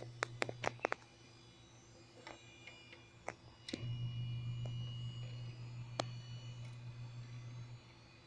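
Computer drives running on an open test bench: a steady low hum that grows louder about four seconds in, when the hard drive is close. A quick run of sharp clicks comes in the first second, and single clicks follow a few times after that.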